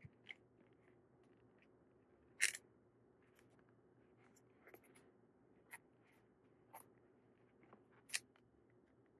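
Faint handling noises of an adhesive-backed tailgate seal strip being pressed onto a metal rail by hand: scattered small clicks and scrapes, with a louder brief scrape about two and a half seconds in and another near the end.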